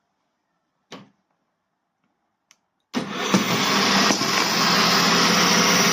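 Ego BC3800E brushcutter's brushless motor, driven by a replacement sensorless three-phase BLDC controller, starts suddenly about three seconds in and then runs steadily at a constant speed, showing the replacement controller works. A faint click comes about a second in.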